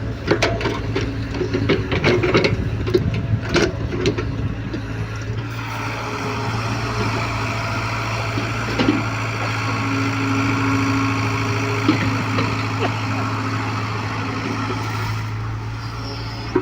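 Hyundai excavator's diesel engine running steadily, with a scatter of knocks and clatters in the first few seconds.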